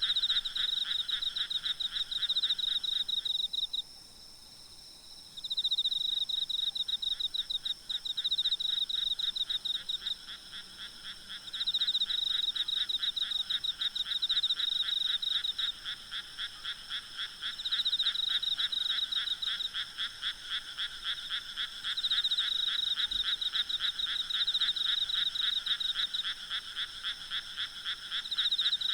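Night chorus of frogs calling in fast pulsed bouts that break off and resume every few seconds, with a pause of about two seconds near the start. Underneath is a steady high-pitched trill of insects.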